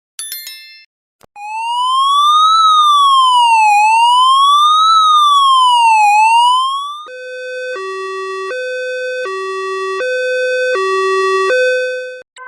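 Ambulance siren: a smooth wail rising and falling slowly, about two and a half seconds per cycle. About seven seconds in it switches to a two-tone hi-lo siren that alternates between two notes roughly every 0.8 s. A brief electronic chirp comes just before the wail starts.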